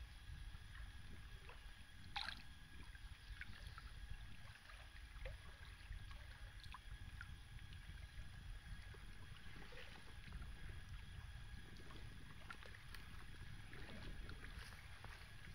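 Small lake waves gently lapping and ticking against a canoe, under a faint low wind rumble on the microphone. There is one slightly louder splash about two seconds in.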